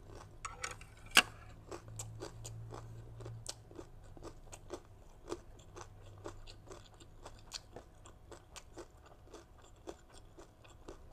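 A person chewing crunchy toasted rice crackers (bánh đa) with green mango and shrimp salad: a continuous run of small, irregular crunching crackles, with one sharp crack about a second in.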